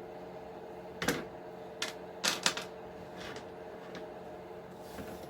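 Sharp clicks and clacks of small screws and plastic parts being picked up and handled during an RC truck teardown: one about a second in, another near two seconds, and a quick pair around two and a half seconds, with fainter ticks after, over a steady background hum.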